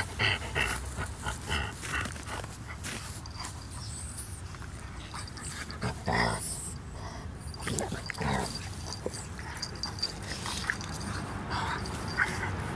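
A Frenchton puppy and a Greater Swiss Mountain Dog play-wrestling, giving short dog vocal sounds every second or two. The loudest and deepest comes about six seconds in, with a steady low rumble underneath.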